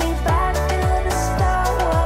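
Background pop music with a steady beat, just under two deep drum strokes a second.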